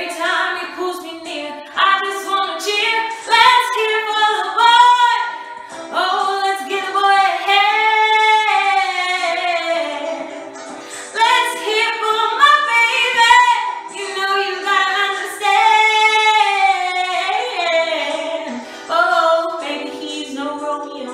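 A woman singing solo, one voice carrying long held notes that slide up and down, with short breaks between phrases.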